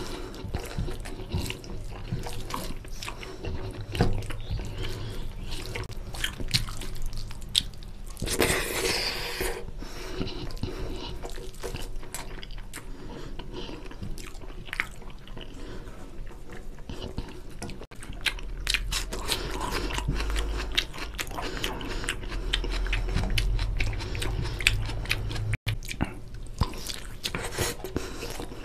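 Close-miked chewing of a mouthful of rice and chicken curry, with many short wet clicks, and the squishing of fingers mixing rice into gravy on the plate.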